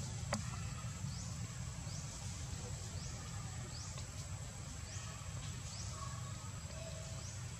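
Forest ambience: a short high chirp, rising in pitch, repeats about once a second over a steady high whine and a low rumble, with one faint click near the start.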